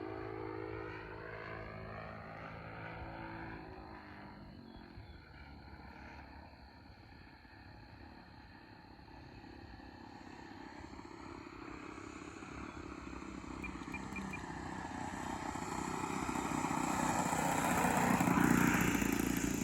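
Engine of a large RC model airplane in flight. It passes and fades into the distance with its pitch dropping, then grows steadily louder as the plane comes back in, and sweeps by close near the end with another drop in pitch.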